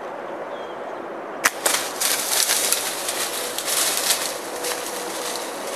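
A bow shot: one sharp crack about a second and a half in, then a few seconds of crackling and rustling as the shot whitetail doe runs off through dry grass and leaves.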